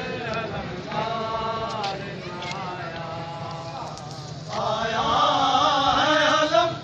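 Male voices chanting a Muharram mourning lament (noha) in long, drawn-out lines. The chant grows louder and fuller about four and a half seconds in.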